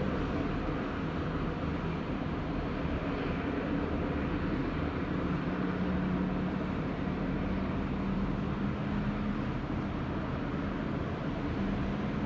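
Jet engines running on ground test stands, two at once: a steady roar with a low drone underneath whose pitch drops slightly about five seconds in.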